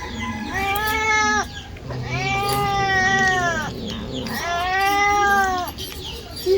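Domestic cat meowing three times, long drawn-out meows, each rising and then falling in pitch.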